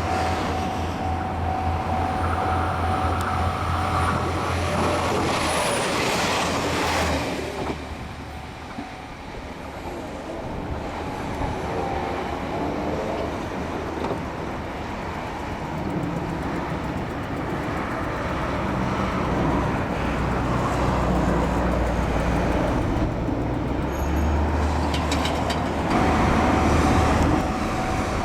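Japanese railway level-crossing warning bell ringing, falling silent about seven seconds in and starting up again near the end; in between, the rumble of passing vehicles.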